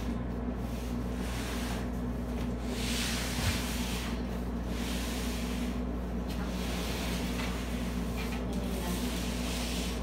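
Large flat-pack furniture panels being lifted, stood on edge and slid against each other, rubbing and scraping in several stretches, with one short thump about three and a half seconds in. A steady low hum runs underneath.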